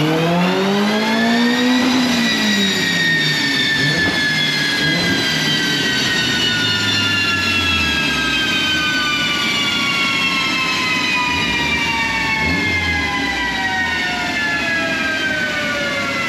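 Mitsubishi Lancer Evolution X's turbocharged 4B11 inline-four on a chassis dyno: the pitch climbs to a peak about two seconds in as a full-throttle pull ends, then the engine, wheels and dyno rollers coast down together in one long, slowly falling whine.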